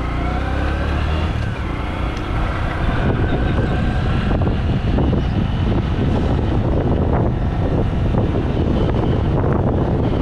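Motorcycle engine running as the bike pulls away, its pitch rising early on, then heavy wind rush over the helmet-mounted GoPro's built-in microphone that grows louder from about three seconds in and drowns out most of the engine.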